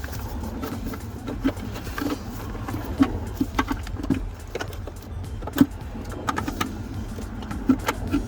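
Wires and plastic connector clips of a door wiring harness being handled and pushed into place: scattered light clicks, taps and rattles at irregular moments, over a steady low rumble.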